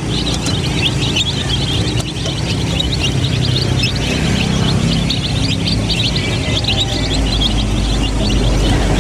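A flock of domestic chicks peeping, many short high cheeps overlapping without a break, over a low steady rumble.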